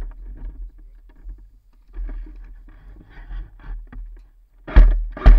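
Low rumble and rustle of an action camera mounted on an airsoft rifle as it is carried along, with two sharp, loud knocks about half a second apart near the end.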